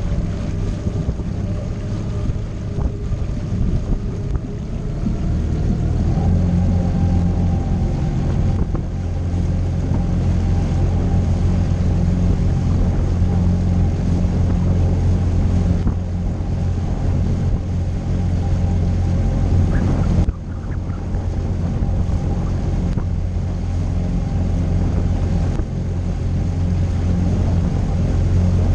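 Suzuki DF20A four-stroke outboard motor running steadily as it drives a small aluminium boat, its note growing louder and firmer about six seconds in as the throttle is opened. Wind buffets the microphone and water rushes past the hull.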